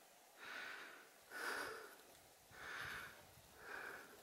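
A person breathing hard and rhythmically, four breaths about a second apart, winded after a steep climb.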